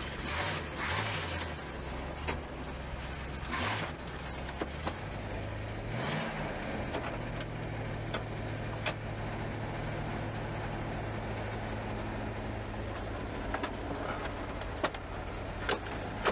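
1972 Oldsmobile Cutlass Supreme V8 engine heard from the driver's seat. Its note rises and falls briefly about six seconds in, then holds a steady idle. There are a few brief rustles and knocks in the first four seconds.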